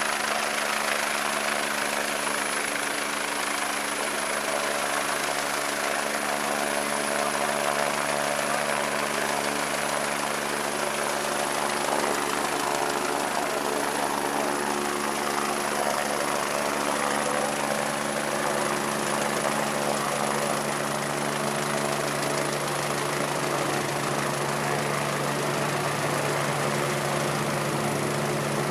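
Rescue helicopter hovering close by, its turbine and rotor making a steady hum with a low tone that strengthens near the end as it comes almost overhead. The rotor wash adds a constant rushing of wind.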